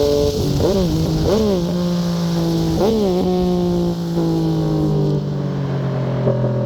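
Yamaha MT-09 three-cylinder engine through a Fuse Caracol exhaust with the dB killer removed, given three short throttle blips in the first three seconds, each note jumping up and dropping back. Between and after the blips the engine note holds and slowly sinks lower.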